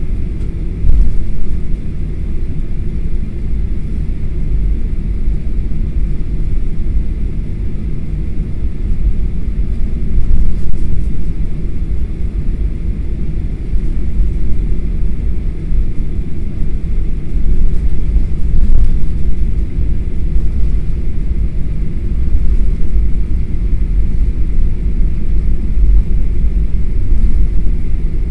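Cabin noise of a Skymark Boeing 737-800 taxiing after landing: a steady low rumble from the idling engines and the aircraft rolling along the taxiway.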